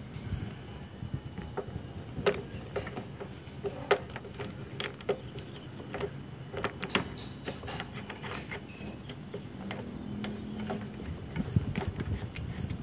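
MIG welding torch's euro connector being pushed into the wire feeder's brass socket and its plastic locking nut screwed on by hand: scattered light plastic-and-metal clicks and knocks.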